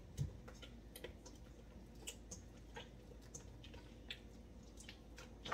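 Chapati dough being kneaded: faint, irregular sticky clicks and squishes, with a soft thump about a quarter second in.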